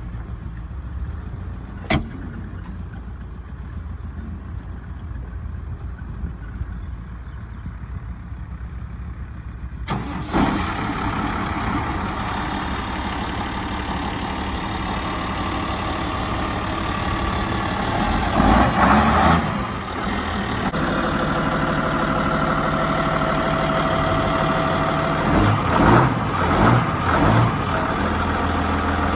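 New Holland TM120 tractor's diesel engine running at idle, with a single click about two seconds in. From about ten seconds it is louder, and in the second half it revs up briefly twice.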